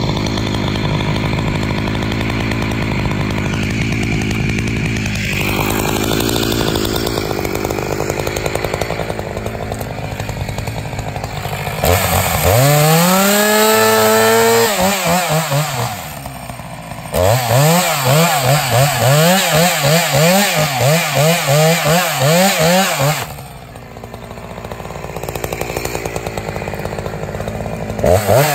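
Two-stroke chainsaw cutting into the trunk of a cracked spruce being felled. It runs at low speed, revs up to full throttle about twelve seconds in and eases briefly, then runs in the cut with its engine speed rising and falling about twice a second. It drops back to low speed and revs up again at the very end.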